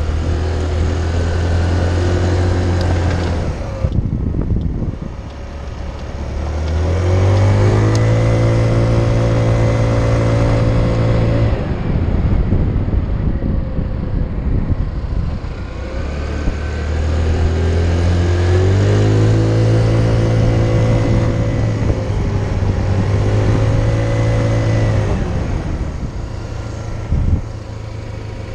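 Motor scooter engine heard from the rider's seat while riding: the note climbs in pitch twice as the throttle opens, holds steady while cruising, then falls back each time the throttle closes.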